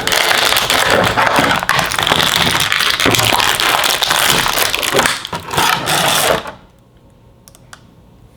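Plastic packaging crinkling and crackling as it is handled and torn open to free a small toy figure, stopping abruptly about six and a half seconds in.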